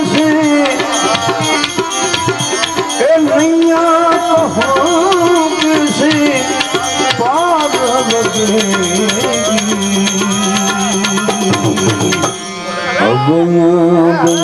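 Live Gujarati bhajan music: tabla with a pitched melody line over it and a fast, even ticking percussion throughout. About twelve seconds in the music dips briefly, then a new, held phrase rises in.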